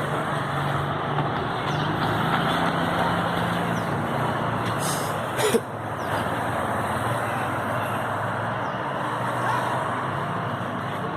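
A motor vehicle's engine running steadily amid street noise, with a low hum through the first few seconds. A single sharp knock comes about five and a half seconds in.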